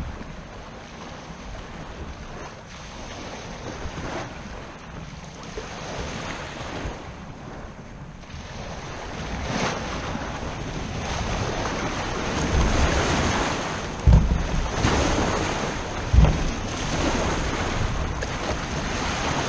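Waves sloshing against a Hobie Outback kayak's hull and washing up a boat ramp, with wind on the microphone. The wash gets louder about halfway through, and two heavy thumps come a couple of seconds apart near the end.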